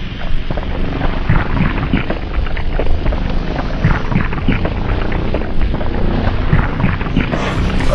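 A continuous deep rumble of an explosion-type sound effect, thick with crackling and popping, holding at a steady loud level.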